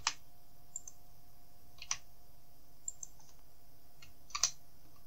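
A handful of short, sharp clicks from a computer keyboard and mouse, the louder ones near the start, about two seconds in and near the end, over a faint steady hum.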